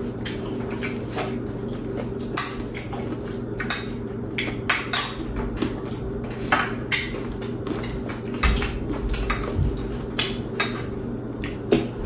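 A utensil clinking against a dish in quick, irregular clicks, a few a second, over a steady low hum.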